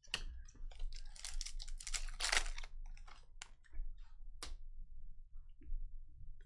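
A foil trading-card pack crinkling and crackling as it is torn open, then scattered clicks as the stiff cards are handled and slid against each other. The crackle is densest in the first three seconds and thins to single clicks after.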